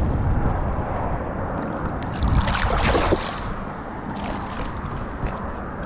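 A hooked flounder thrashing at the water's surface, with a burst of splashing about two seconds in that lasts around a second. Steady wind rumbles on the microphone throughout.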